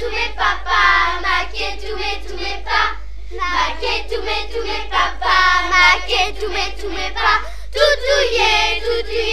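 Children singing a song in phrases, with short breaks about three seconds and nearly eight seconds in. A steady low hum runs underneath.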